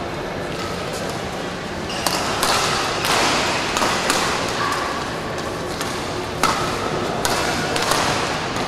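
Badminton racket strings striking a shuttlecock during a rally: a few sharp hits, spaced a second or more apart, over steady noise from the sports hall.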